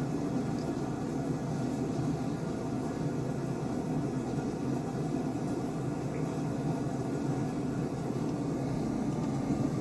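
Steady low rushing noise with a faint hum in it, even throughout.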